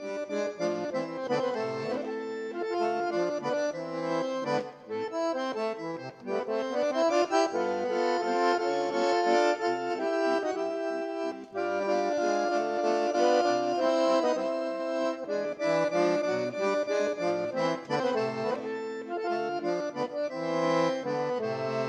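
Accordion music: a tune of held chords and melody notes over a moving bass line.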